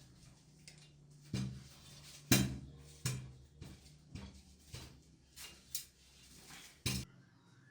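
Metal parts clinking and knocking, about a dozen sharp hits at irregular spacing, over a steady low hum that cuts off with a knock near the end.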